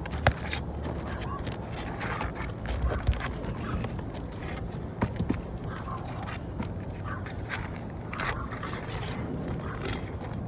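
Asphalt roof shingle being pried loose: scraping with many scattered sharp clicks and snaps as the sealed top shingle is worked free from the one below.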